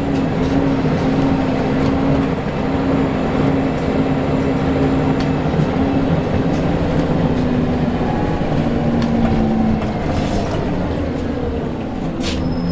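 Scania L94UB bus's nine-litre five-cylinder diesel engine running while the bus is under way, a steady drone that shifts a little in pitch. A short hiss comes about ten seconds in and a sharp click near the end.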